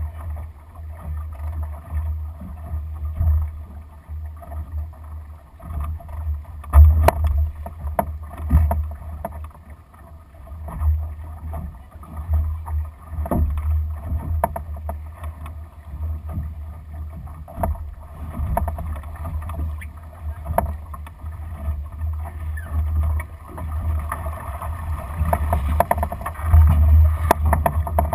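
Wind buffeting the microphone of a deck-mounted camera on a Lightning sailing dinghy, a gusting low rumble, over water rushing along the hull, with a few sharp knocks from the boat's fittings. The rush of water grows louder near the end as the boat heels on the new tack.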